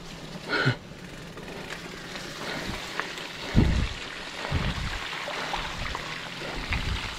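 Fat-bike tyres rolling over a wet, muddy trail: a steady splashy hiss with fine crackle, and a few dull low thumps from about three and a half seconds in.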